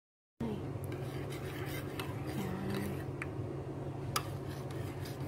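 Steady low hum of background noise with a few faint clicks and taps. It starts abruptly about half a second in, after dead silence.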